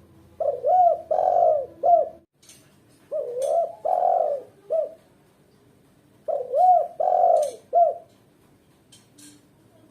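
Female spotted dove cooing: three phrases of a few coo notes each, about three seconds apart.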